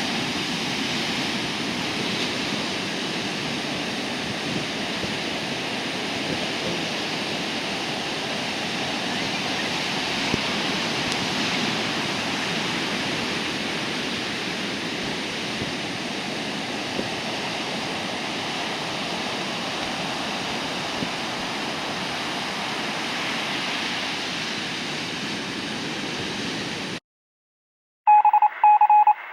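Steady rush of ocean surf from big typhoon swell, waves breaking without letup. It cuts off abruptly near the end, and after a moment of silence a rapid series of electronic beeps starts.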